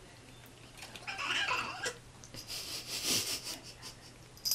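A young cat, about eleven months old, makes two short raspy cries, one about a second in and a breathier, higher one around three seconds in.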